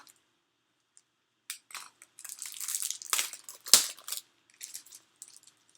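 Packaging crinkling and rustling as a pack of patterned paper is handled, in irregular bursts with one sharp crackle near the middle, then a few faint rustles.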